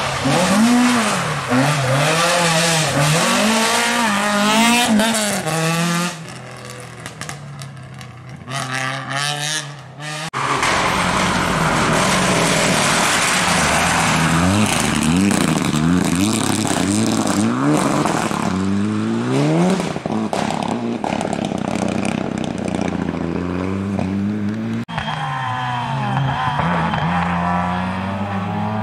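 Rally car engines revving hard through corners, the pitch climbing and dropping again and again with gear changes and lifts off the throttle, one car after another. There is a quieter stretch from about six to ten seconds before a louder engine cuts in.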